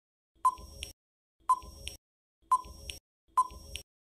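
Countdown timer sound effect: a short electronic beep about once a second, four times, counting down the seconds left to answer.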